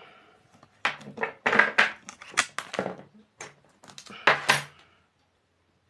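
Thin aluminium plates and their bolt hardware clinking and clattering as they are handled: a quick string of a dozen or so sharp metallic knocks.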